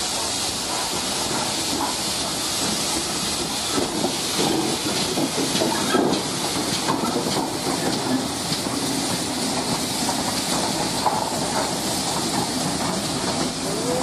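GWR King class 4-6-0 steam locomotive moving slowly past, with a steady hiss of escaping steam and faint wheel knocks and clanks on the rails.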